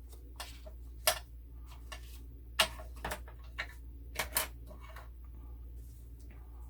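Papers and small craft pieces being handled and set down on a tabletop: about six sharp taps and clicks, the loudest about a second in and two and a half seconds in, over a low steady hum.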